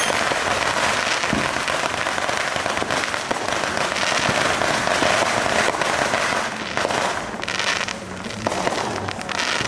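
Many fireworks and firecrackers going off at once: a dense, continuous crackling and popping, easing slightly about eight seconds in.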